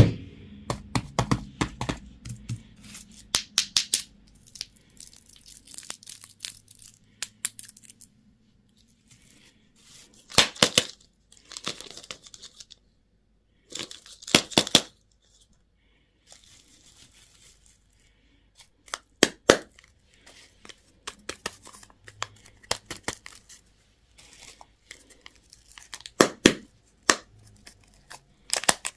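Candy and toy packaging being torn open and crinkled, in bursts of sharp crackling tearing sounds with quiet pauses between.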